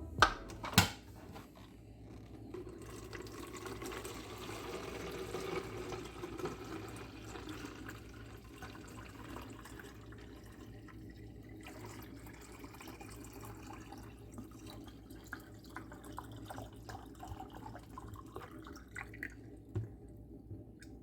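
Water running from a tap into a sink, with a couple of knocks at the start and scattered small clicks later as it quietens.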